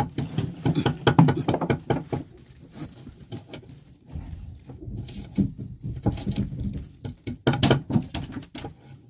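Handline hauled in hand over hand on a small boat: irregular rustling, scraping and knocking of the nylon line running through the hands. The noise is busiest in the first couple of seconds, eases off, then picks up again with a loud cluster of knocks about seven and a half seconds in.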